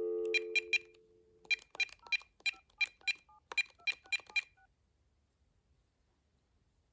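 VTech CS5121 cordless phone handset, heard over its speaker: a steady dial tone for about the first second and a half. Then a run of about a dozen short keypress beeps with faint touch-tone tones as a number is dialed, stopping about two-thirds of the way through.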